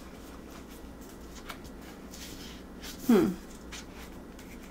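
Stiff cardboard cover and pages of a board book being opened and turned, with a few faint taps and rustles. About three seconds in comes one short vocal sound that falls in pitch, the loudest thing here.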